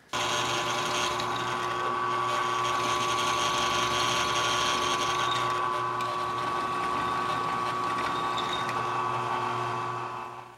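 Milling machine spindle running steadily with a drill bit boring out the cross pin hole in a steel brush hog wheel spindle, re-drilling a hole that had been beaten egg-shaped back to size. It is a steady whine over a low hum, fading out near the end.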